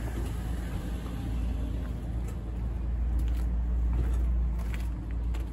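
Low, steady rumble of street traffic, swelling for a couple of seconds in the middle.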